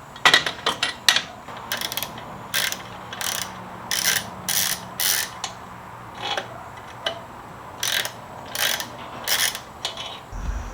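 Hand socket ratchet clicking as it turns a bolt on the exhaust mounting, a few sharp clicks at first and then about eleven short ratcheting strokes, with a brief pause midway.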